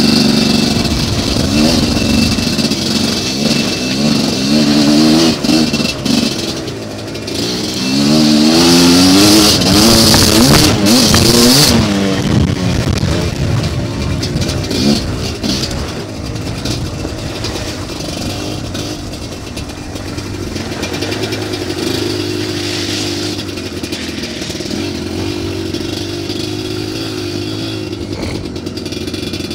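GPXMoto TSE250R dirt bike's 250cc single-cylinder four-stroke engine under way, its revs rising and falling repeatedly with a hiss over it for the first dozen seconds. After that it settles into a quieter, steady low run as the bike slows.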